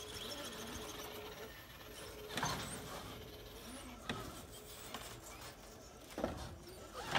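Electric motor and gear drivetrain of a scale RC rock crawler whirring as the truck creeps up a wooden plank. A few sharp knocks come about two and a half, four and six seconds in.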